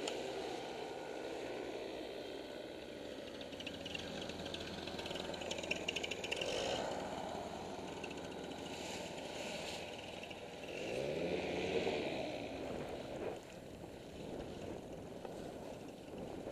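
Small two-stroke paramotor engines running, the engine sound swelling and its pitch rising and falling twice.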